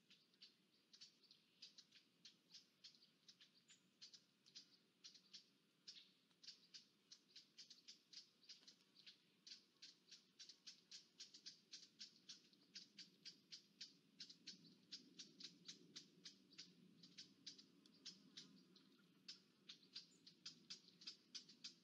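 Faint, rapid, high chirping, about four short chirps a second, keeping up steadily over a faint low hiss.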